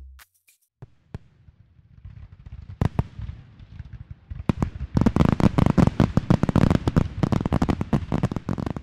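Fireworks display: scattered bangs over a low rumble at first, then about five seconds in a dense barrage of rapid bangs and crackles.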